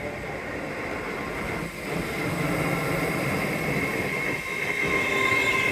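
LNER express train running on the main line. Its rumble grows louder from about two seconds in, and a steady high whine sits over it.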